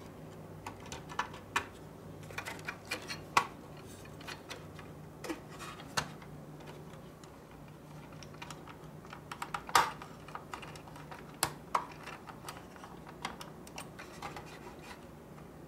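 Irregular plastic and metal clicks and knocks as a hard drive in its blue plastic mounting rails is handled and fitted back into a desktop computer case, over a faint steady low hum.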